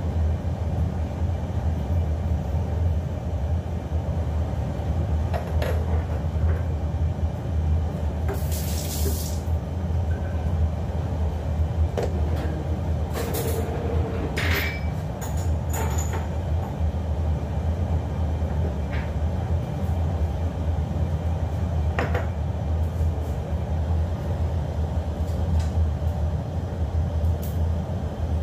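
Steady low rumble at a lit gas stove while an empty wok heats over the flame, with a few light clicks and knocks scattered through it.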